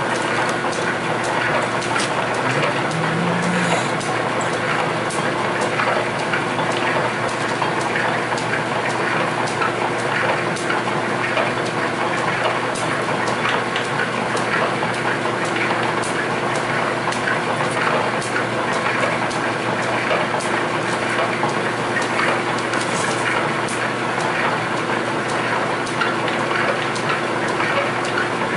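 Old Camelback drill press running steadily with a Jarvis tapping head, driving a tap to thread bolt holes in a steam-chest plate. The motor hums evenly throughout.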